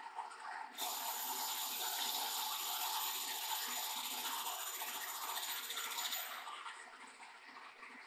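Engine lathe taking a light facing cut across a sawmill saw collar, cleaning up its crushed face: the tool makes a steady hissing scrape that starts about a second in and dies away around six seconds, over the lathe's steady hum.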